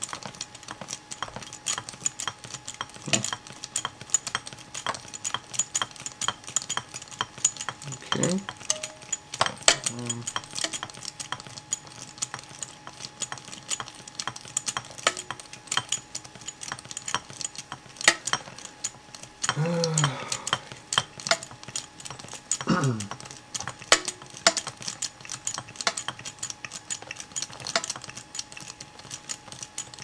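Refrigeration service ratchet wrench clicking as it turns a king valve stem inward, front-seating the valve: a long run of quick, irregular metallic clicks with short pauses between strokes.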